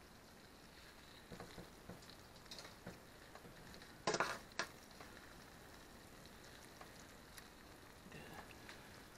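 Fried chicken sizzling faintly in a hot turkey roaster, with a short louder clatter about four seconds in.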